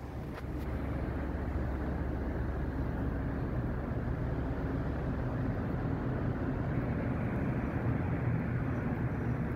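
Steady low drone of a ship's engines and machinery, with even low hum lines and no break.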